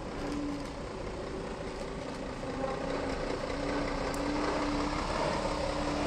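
Scania truck's diesel engine running at low revs as the truck rolls slowly closer, its steady hum getting gradually louder.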